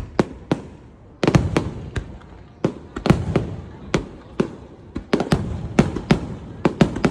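Aerial fireworks bursting: a rapid run of sharp bangs, around three a second, each trailing off in a low rumbling echo.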